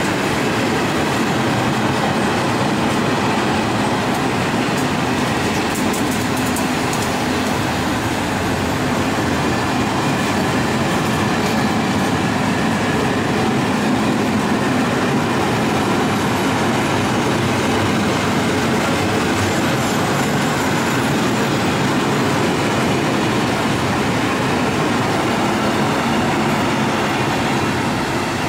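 Freight train of open-top coal wagons rolling past close by: a steady rumble and clatter of wheels on rail, easing slightly at the end as the last wagons go by.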